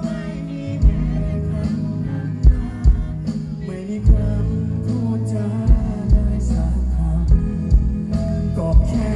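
Live band music amplified over a concert sound system: a man singing into a microphone over sustained bass notes and drum hits.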